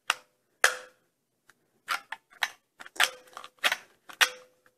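Plastic spring-loaded toy ball blaster (Cybug Attack Gun) being handled and fired: a run of about seven sharp plastic clicks and snaps, several followed by a brief ringing twang.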